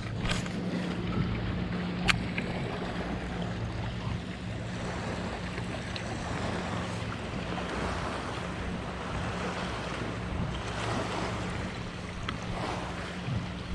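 Small waves lapping at a kayak with wind on the microphone, over a steady low hum of a boat engine running on the lake. One sharp click about two seconds in.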